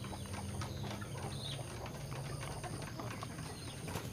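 A chicken with ngorok, a respiratory illness that makes it breathe noisily, being held and hand-fed crushed garlic: many small clicks over a low steady drone, with a brief chirp about a second and a half in.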